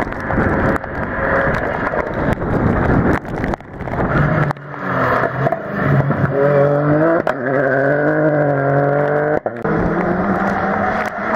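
Rally cars passing flat out on a wet tarmac stage. First comes the hiss of tyres on the wet road over an engine. From about halfway a car's engine rises and falls through gear changes, with sharp cracks at the shifts, and near the end another engine note holds steady.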